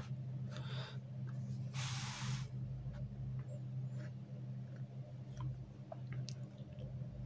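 Quiet room tone with a steady low hum. A short hiss comes about two seconds in, and a few faint ticks of a ballpoint pen on paper come near the end.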